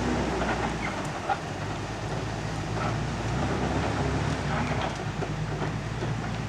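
Camox F140 forestry tractor's engine running steadily while its crane-mounted delimber works, with scattered small cracks and a sharp click about a second in.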